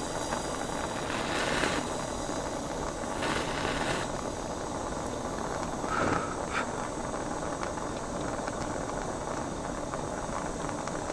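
Handheld gas torch flame running steadily, heating a fluxed copper pipe coupling up to soldering temperature, with a few faint swells in the hiss.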